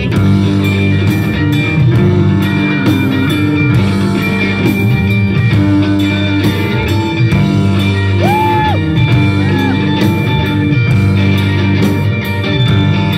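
Live rock band playing an instrumental passage: electric guitars over bass and drums.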